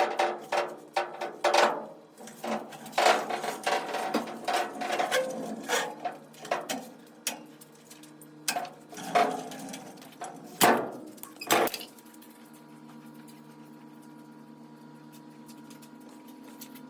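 Irregular knocks and clanks of tools and metal parts being handled, some ringing briefly. About twelve seconds in they stop, leaving a faint steady hum.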